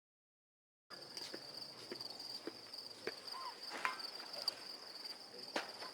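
Insects trilling on one steady high note, starting about a second in, with scattered light clicks underneath.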